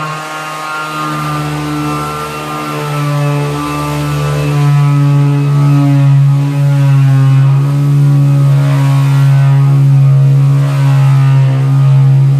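Ryobi 18-volt 5-inch cordless random orbit sander running with a coarse-grit disc, sanding wood: a steady motor whine over a strong hum, growing louder over the first few seconds and then holding level with slight wavers in pitch.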